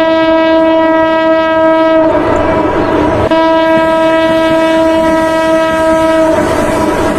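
Train horn sounding two long, steady blasts, the second starting about a second after the first stops, with the rumble of the train on the rails in the gap and after.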